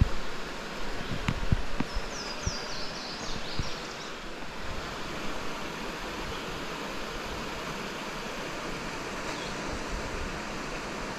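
Steady rush of creek water over shale, with a short run of high chirps about two seconds in.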